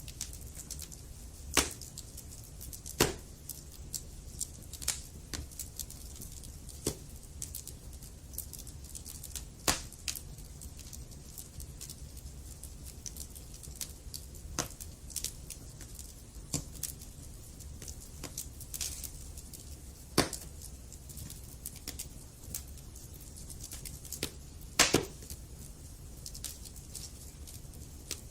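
Wood fire burning in a fireplace: a steady low rumble and hiss with irregular sharp crackles and pops, a few of them loud.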